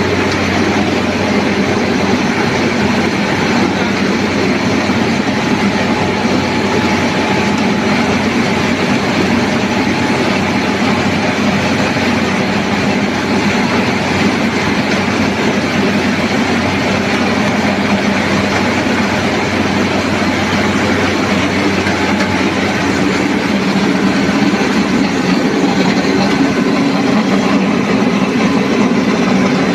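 NG 25D combined rice milling machine running steadily under power: a loud, even mechanical drone and rattle, growing slightly louder near the end.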